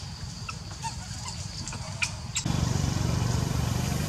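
A motor engine idling: a steady low pulsing rumble that gets louder a little over halfway through. A few faint short high chirps and two sharp clicks sit above it.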